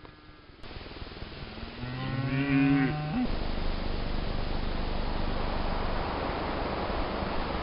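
A cow mooing once, a low call about a second and a half long that ends with a brief upward turn in pitch. A steady hiss follows it.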